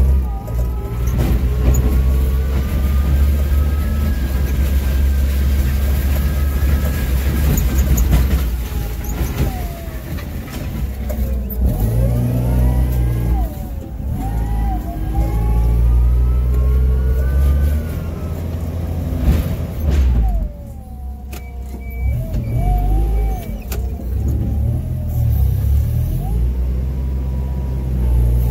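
Forklift running as it drives, a steady low drone under a whine that rises and falls in pitch as it speeds up and slows. A brief steady high tone sounds about three-quarters of the way through.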